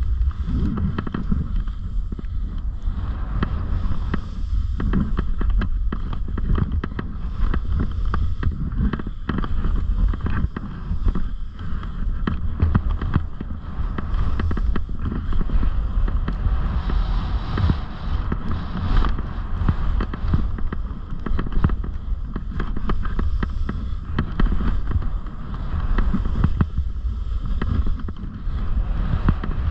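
Wind rumbling on the camera microphone while a snowboard rides over snow, its base and edges scraping and chattering continuously.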